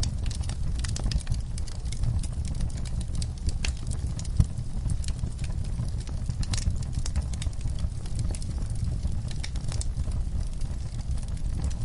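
Wood campfire burning: a low steady rumble of flames with irregular sharp crackles and pops, one louder pop about four seconds in.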